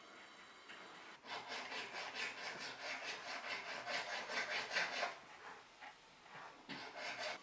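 Rapid rasping strokes of a jeweler's hand tool working metal at the bench, about four strokes a second. The strokes stop for a moment and then come back briefly near the end.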